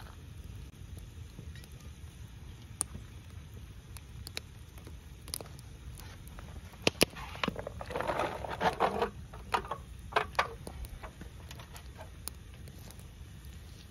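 Diced onions and green bell peppers tipped out of an aluminium foil pan into a cast iron Dutch oven, a rustling clatter lasting about a second some eight seconds in, followed by a couple of shorter shakes. Scattered sharp crackles from the wood fire sound throughout.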